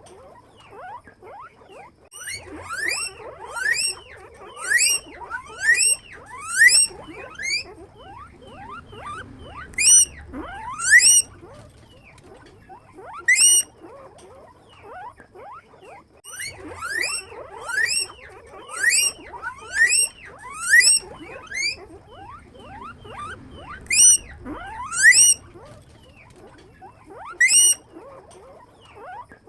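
Guinea pigs squealing (wheeking): loud, high, sharply rising whistled calls repeated in bouts of several, about two a second, with short pauses between bouts.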